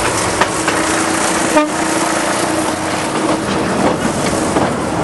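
Narrow-gauge passenger train running, a steady hum under a general rumble, with one sharp click about one and a half seconds in.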